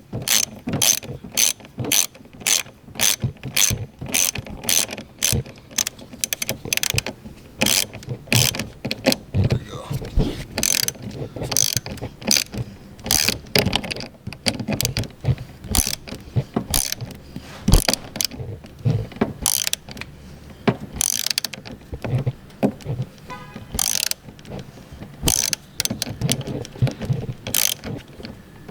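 Socket wrench ratchet clicking as the nut on a car battery's negative terminal clamp is tightened, in quick even runs of about two to three clicks a second at first, then sparser and more irregular.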